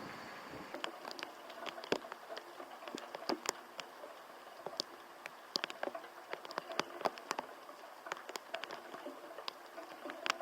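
Raindrops hitting a hard surface close to the microphone: many irregular sharp ticks, several a second, over a steady hiss of typhoon rain.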